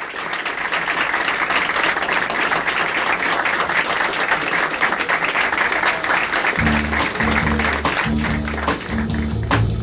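An audience applauding, a dense patter of clapping. About two-thirds of the way through, music with a plucked, repeating bass line comes in as the clapping dies away.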